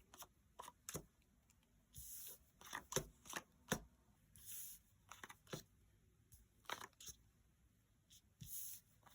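Faint paper handling: scattered light taps and ticks with a few short rustles and slides as sticker sheets and die cuts are picked up and moved.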